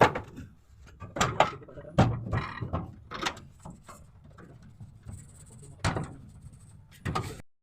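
A series of irregular knocks and clanks, the loudest right at the start and about two seconds in, with quieter rattling between them. The sound cuts off suddenly near the end.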